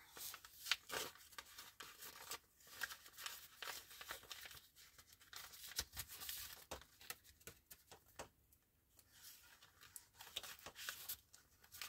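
Faint rustling and crinkling of a clear plastic binder pocket and paper bills being handled, with scattered small clicks and taps.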